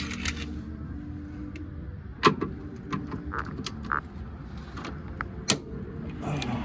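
Hand tools clinking and knocking on metal while removing the steering damper's mounting bolts, in separate sharp clicks with a strong knock about two seconds in, over a low steady hum.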